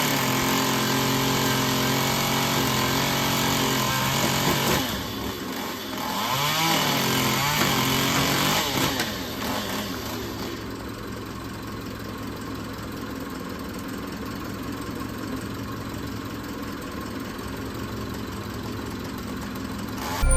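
An engine revs up and runs at high speed, eases off about five seconds in, revs up again, then drops after about nine seconds to a lower, steady run.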